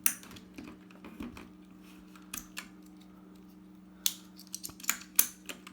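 Keycaps being pried off a mechanical keyboard with a keycap puller: scattered plastic clicks and snaps, a few at a time, with the loudest snap about five seconds in, over a faint steady hum.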